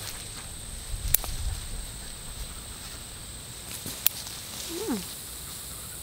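Two sharp snips of hand scissors cutting goldenrod stems, about three seconds apart, with the stalks rustling as they are gathered. About five seconds in comes a short animal call that falls in pitch.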